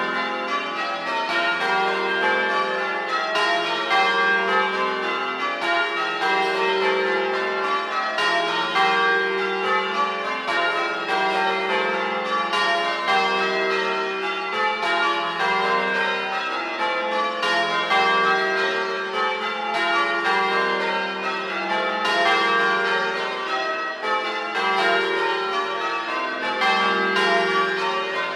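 The 1954 Gillett and Johnston ring of eight church bells ringing full circle: a continuous, evenly paced stream of bell strikes, each leaving a long ringing tone that overlaps the next.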